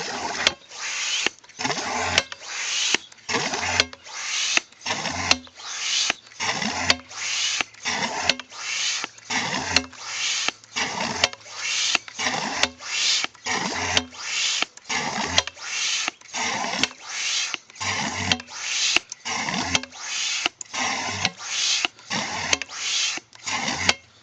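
Mighty Pump hand-operated condensate drain pump being worked steadily, about three strokes every two seconds, each stroke a rushing gush with a low thump at its start, forcing through a condensate drain line that was a little clogged. The pumping stops abruptly at the end.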